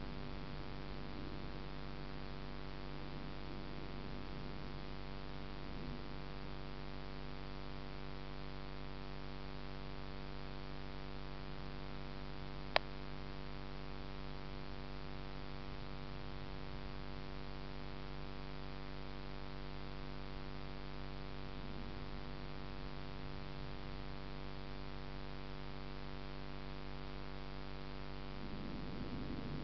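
Steady electrical hum made of many even tones over a faint hiss, with a single sharp click about 13 seconds in. A faint low rumble swells near the end.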